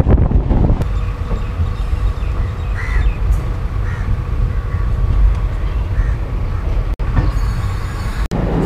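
Wind buffeting the microphone out of an open train door for about the first second, then the steady low rumble of a passenger train's coaches rolling into a station.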